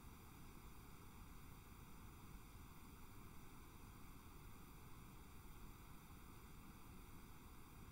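Near silence: a faint, steady hiss with nothing else in it.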